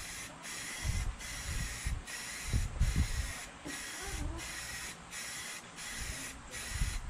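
Aerosol can of white Rust-Oleum spray paint hissing in a rapid series of short sprays, each under a second long, with brief breaks between them. A few low thumps sound underneath.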